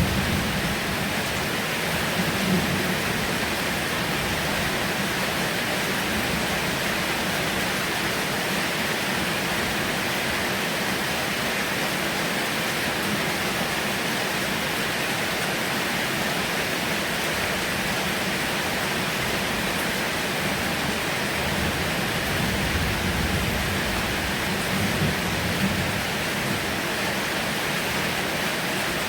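Heavy rain falling steadily as a dense, even hiss, with low rumbles swelling briefly near the start and again a little after twenty seconds in.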